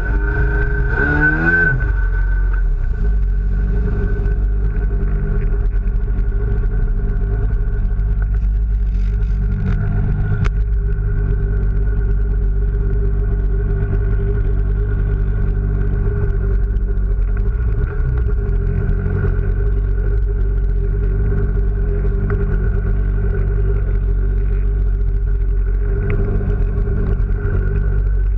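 Sea-Doo XP's 920cc big-bore two-stroke twin engine coming off the throttle, its pitch wavering and falling in the first two seconds, then running steadily at low speed.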